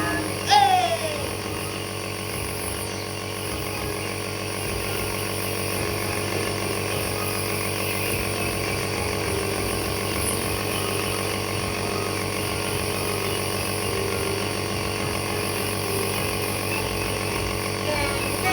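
Home nebulizer's compressor running with a steady hum. About half a second in, a short falling vocal sound cuts in briefly.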